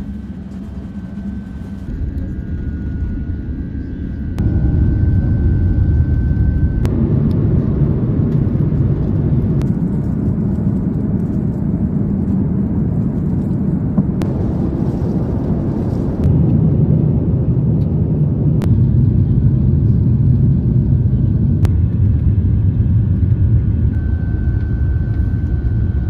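Jet airliner cabin noise: a loud, steady low rumble of engines and airflow, jumping in level a few times between clips, with a faint steady high whine in some stretches.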